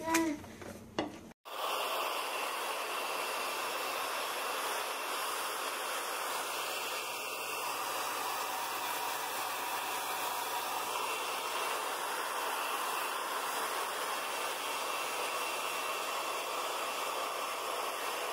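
Hair dryer blowing steadily, an even rushing hiss that starts abruptly about a second and a half in.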